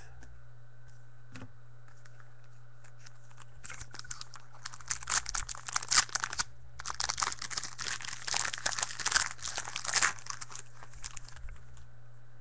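Wrapper of a 2013 Panini Contenders Football trading-card pack being torn open and crinkled by hand: crackling starts about four seconds in and runs in two stretches with a brief pause between them.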